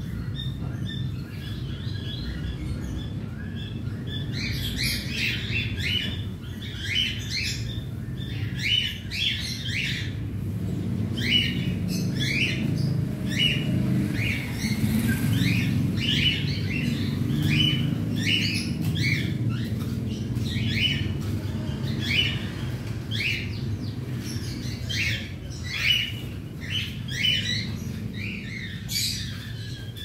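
A colony flock of cockatiels calling in short repeated chirps, a couple a second, over a steady low hum.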